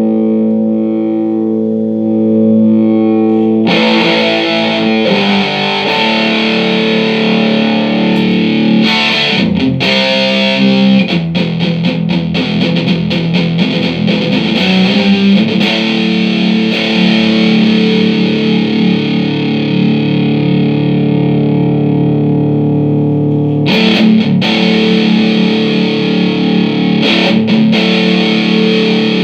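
Electric guitar played with distortion through a Mesa Boogie Dual Caliber DC-3 tube amplifier, the amp working again after a repair. A held chord rings for about three seconds, then busier distorted playing follows, with long sustained notes in the middle and fresh picked notes near the end.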